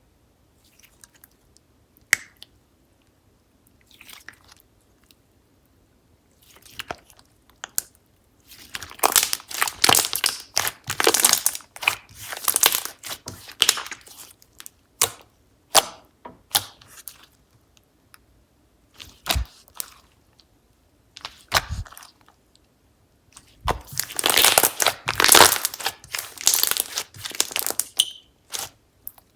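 Slime being squeezed and pressed by hand, giving irregular runs of sticky clicks and pops. There are a few scattered pops at first, then two longer, denser stretches of handling.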